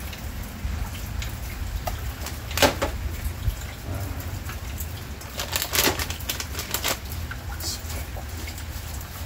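Steady rain with a low rumble, broken by short sharp clatters from handling cooking utensils and containers: one about two and a half seconds in and a quick cluster around six seconds.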